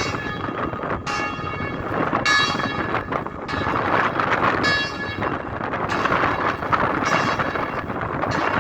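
Church bells ringing, one bright strike roughly every second, each left to ring on, against a steady rush of wind noise on the microphone.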